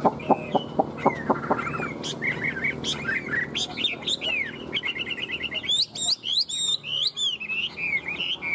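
A Chinese hwamei (melodious laughingthrush) singing. It opens with a quick run of sharp falling notes, then moves into a varied warbling song that climbs into fast, high whistles and trills in the second half.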